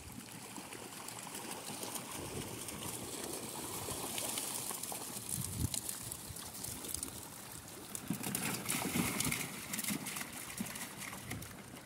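Water splashing and trickling as crowded rainbow trout thrash at the surface of shallow water, a continuous run of many small, sharp splashes.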